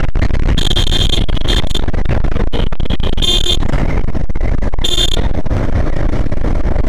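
Wind buffeting the microphone and motorbike and road rumble while riding, with several short high-pitched beeps from about half a second to five seconds in, like vehicle horns in traffic.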